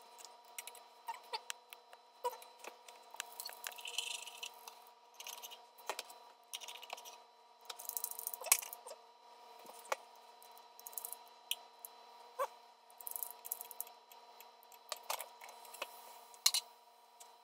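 Irregular light clicks, taps and scrapes of a spatula and hands working a pizzelle iron: the lid is handled and cookies are lifted off the hot plates. There are a few short hissing bursts, the clearest about three seconds and eight seconds in.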